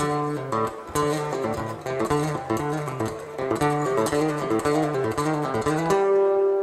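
Solo acoustic guitar played live, picked melody notes over a moving bass line, settling on one held note about six seconds in.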